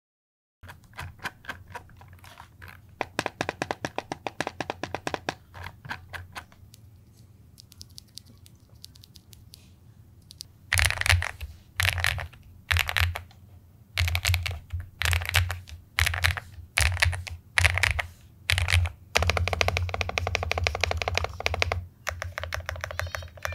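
Typing test on an Ajazz AK820 Max Plus 75% mechanical keyboard with pre-lubed linear switches. Fast runs of keystrokes give way to a sparser patch. Then come short clusters of key presses about once a second, and dense typing again near the end.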